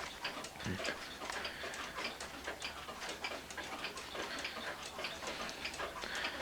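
Small one-day hunter cuckoo clock ticking: its pendulum movement gives a quick, steady, even run of light ticks.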